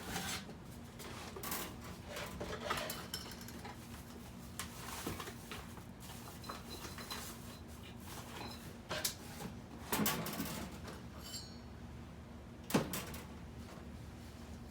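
Hard objects being handled and put away while tidying, with scattered light clinks and knocks and two sharper knocks in the second half, over a faint steady hum.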